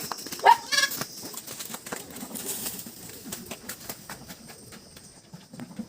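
Farm animals on a goat farm: a short wavering call about half a second in, then scattered clicks and knocks, with poultry or pigeon sounds in the background.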